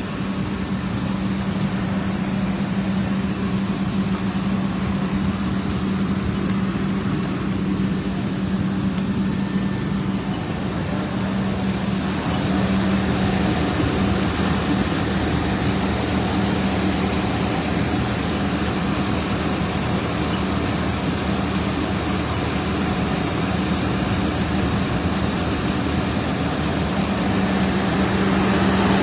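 Heavy vehicle engine, likely a fire engine, running at a steady speed with a constant low hum, growing slightly louder about twelve seconds in.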